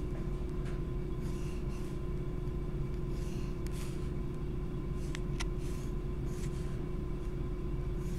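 Graphite pencil scratching across sketchbook paper in short repeated strokes, over a steady low hum.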